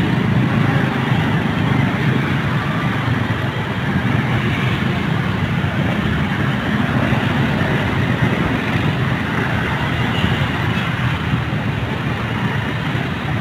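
Heavy road traffic, mostly many small motorcycles and scooters with a few cars, running past together as one steady mix of engine noise.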